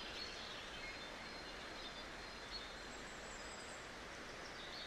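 Faint outdoor ambience: a steady hiss with a few faint, distant bird chirps.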